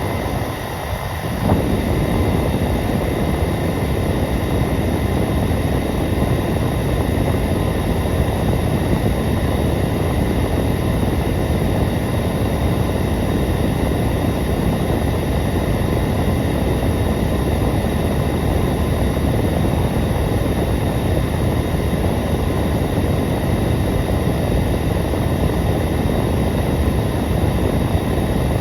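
Hair dryer running continuously, a steady rushing blow of fan and air noise with a faint motor whine. It steps up slightly in level about a second and a half in, then holds even.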